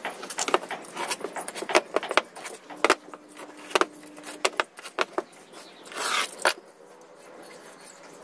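Irregular light clicks and sharp taps as small hand tools and wood are handled on a wooden workbench, with a brief scraping rustle about six seconds in.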